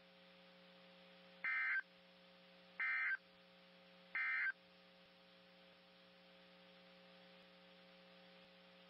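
Three short bursts of EAS SAME digital data tones, a harsh two-tone warbling screech about a second and a half apart: the end-of-message code that closes an Emergency Alert System warning. A steady low electrical hum runs underneath.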